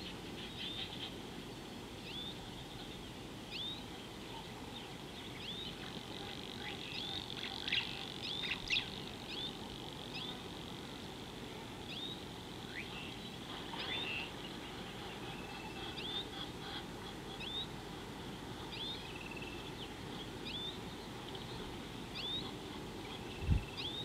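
Wild birds chirping: short, high, rising calls repeated every second or two, busiest about a third of the way in, over a steady low background noise. A brief low thump comes near the end.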